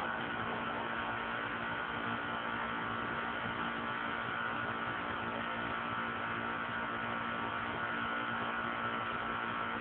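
Jeep CJ-7's AMC 258 inline-six idling steadily through a 2½-inch exhaust with a small bottle-type muffler, with no revving.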